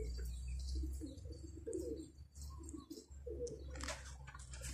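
Domestic pigeons cooing, a low, soft burbling repeated again and again, over a steady low rumble.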